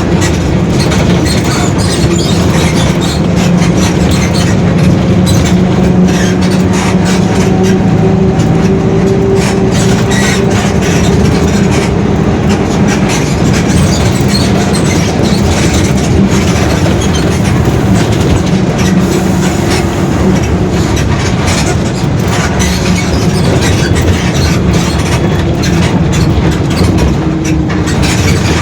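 Mercedes-Benz OF-1721 BlueTec 5 bus underway: a steady diesel drone with the differential growling, a hum whose pitch drifts slightly as speed changes. Many small rattles and clicks run through it.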